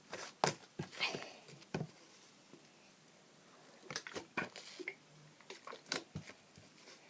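Slime being handled by hand: a scatter of short sticky clicks and squelches, bunched in the first two seconds and again in the second half, with a quiet stretch between.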